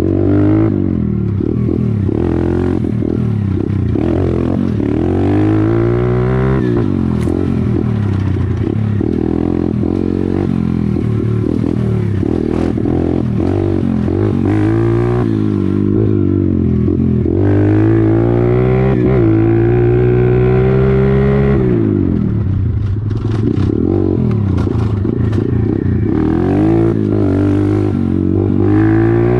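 YCF 125cc pit bike's four-stroke single-cylinder engine, ridden off-road: revs climb and drop back again and again as the throttle opens and closes, with one long climb about two-thirds of the way through. Clicks and knocks from the bike rattling over rough ground come through, thickest near the end.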